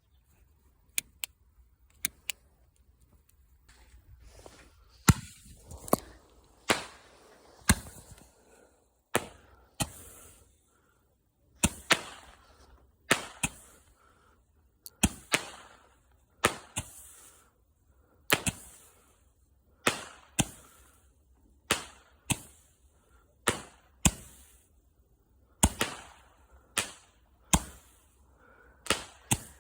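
Roman candle firing: a sharp pop roughly every second and a half, each followed by a short fading hiss, after a few small crackles in the first couple of seconds.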